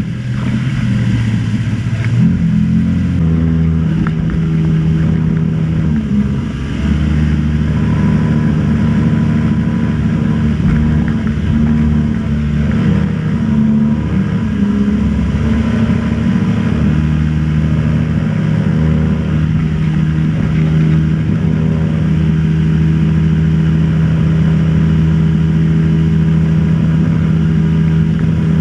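Motorboat engine running at a steady speed under way; its pitch wavers a little in the first few seconds, then holds level.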